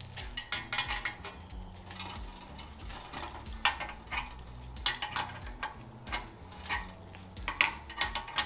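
Irregular metallic clinks and clanks of steel parts and tools being handled, about a dozen sharp knocks spread unevenly, over faint background music.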